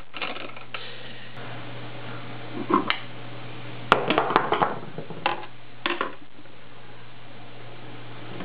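Screwdriver working the screws out of a Tripp-Lite UPS's metal case: scattered metal clicks and clinks, with a cluster of them about four seconds in, over a steady low hum.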